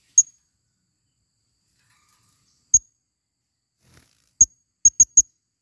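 Female blue-crowned hanging parrots (serindit) giving short, sharp, high-pitched chirps. Three single chirps come well apart, then a quick run of three near the end.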